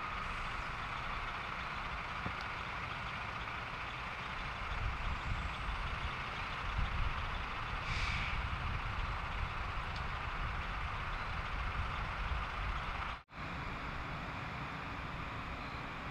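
Fire engine running steadily at the fire scene: a low rumble with a steady whine over it. The sound breaks off for an instant about thirteen seconds in, then carries on.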